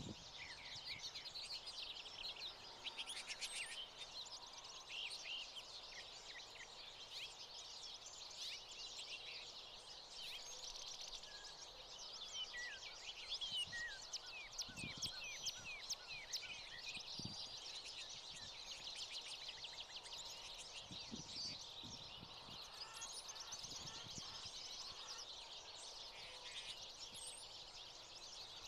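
A flock of American goldfinches chirping and twittering in quick, overlapping calls throughout, with a few soft low thumps partway through.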